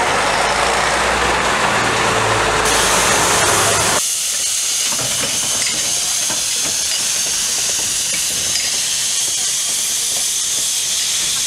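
Narrow-gauge steam locomotive letting off steam: a steady high hiss starts about two and a half seconds in and carries on. Over the first four seconds a louder low mechanical running noise is heard, which stops suddenly.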